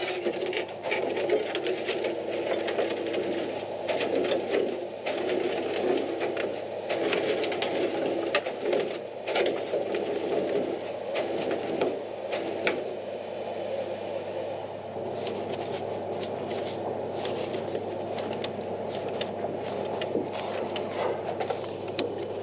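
Tow truck engine idling with a steady hum, and scattered metal clanks and knocks as the wreckage on the flatbed is handled. The clanks come mostly in the first half and thin out after that.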